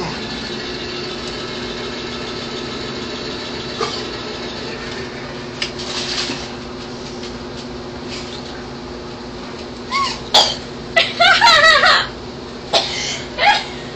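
A steady low hum, then from about ten seconds in a run of loud coughs, gasps and laughter from a boy reacting to the burn of a ghost pepper (Bhut Jolokia) he has just bitten.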